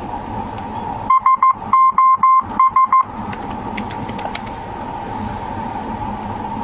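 An electronic beep tone sounds nine times over about two seconds, in the Morse SOS rhythm of three short, three long and three short. It plays over a steady background hum with faint ticking.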